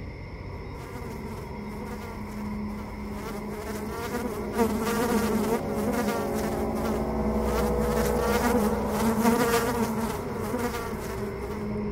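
Flies buzzing, several at once, their pitch wavering up and down; the buzzing grows louder from about four seconds in and eases off near the end.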